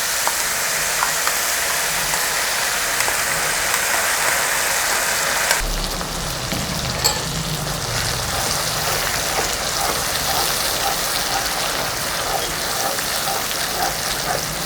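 Ground garlic chutney paste frying in hot sesame oil with its tempering, a steady sizzle. About five and a half seconds in the sound changes abruptly and the sizzle becomes a little quieter.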